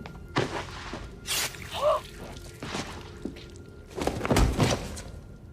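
Television drama soundtrack of a violent scene: dull thuds and sharp knocks over a noisy hall ambience, with one short cry about two seconds in. It cuts off abruptly into silence as the episode ends.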